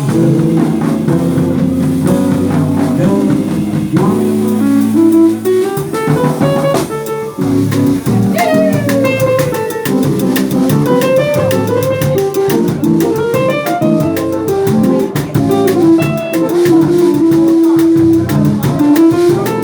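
Instrumental break of a song: a melodic line over guitar, bass and drums, with no singing.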